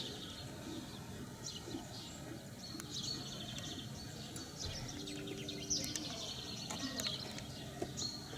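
Small songbirds chirping on and off, with one quick trill about three seconds in, over a steady low background rumble.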